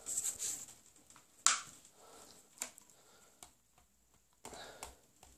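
Quiet handling noise: a few light clicks and taps from a plastic reacher-grabber being used to tap the boa. The sharpest click comes about a second and a half in, with a short rustle near the end.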